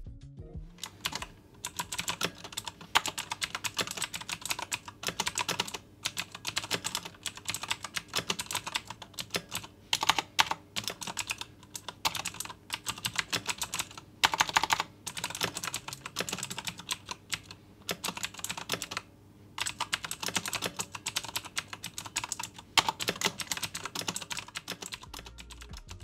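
Typing test on a Thermaltake Argent K5 mechanical keyboard with Cherry MX Blue switches: rapid runs of clicky keystrokes, broken by a few short pauses.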